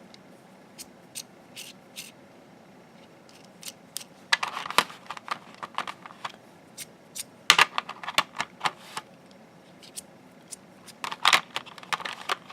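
Small hard-plastic precision screwdrivers clicking and clattering against one another as they are handled, in scattered single clicks and three short bursts of rapid clicking.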